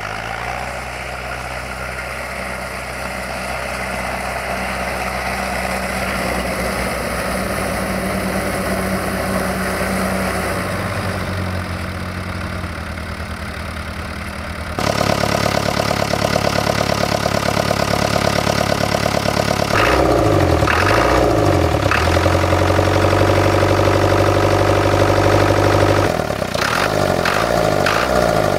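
Diesel engines running during a tow start in snow: first a steady tractor engine pulling under load, then the ARO 244D's own diesel engine running after it catches, with clattering knocks. The sound jumps suddenly louder about fifteen seconds in and changes again twice later.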